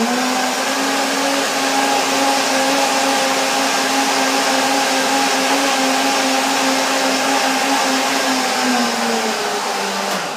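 Countertop blender motor running at speed, blending carrot juice with avocado, ginger and spices into a creamy soup. Its pitch rises slightly as it gets going, holds steady, and sags a little near the end, when it is switched off and spins down.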